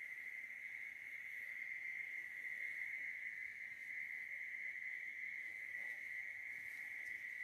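A steady high-pitched whine holding one pitch, with faint rustling of a hand rubbing a dog's fur about six seconds in.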